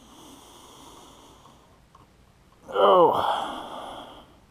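A man's loud, breathy sigh about three seconds in, its voiced note falling steeply in pitch and trailing off, after a faint hiss of breath.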